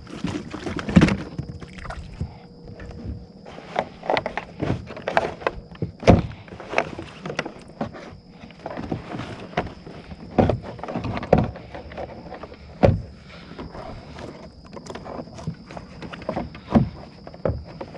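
Irregular knocks, thumps and clatter of fishing gear being handled against the plastic hull and deck of a fishing kayak.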